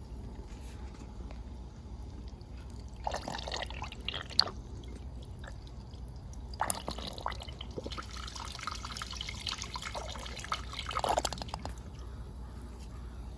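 Miniature plastic model toilet flushing, with small-scale water splashing, trickling and dripping. There is a short spell about three seconds in, then a longer one through the middle.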